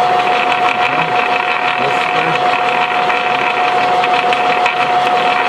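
Repaired Hanomag Kommissbrot gearbox test-running with a gear engaged, its gears meshing in a steady, even whine with one constant high tone over the running noise.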